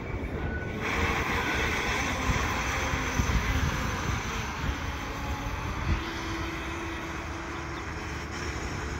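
Diesel switching locomotive running during yard switching moves, a steady engine rumble with wind noise on the microphone, and a single knock about six seconds in.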